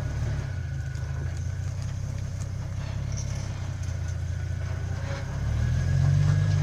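Vehicle engine running with a steady low drone, swelling louder briefly near the end as the throttle opens.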